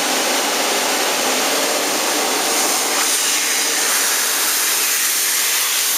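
Sonny's 15-horsepower car wash central vacuum unit running, a steady, noisy rush of air that the owner takes for the sound of a healthy unit.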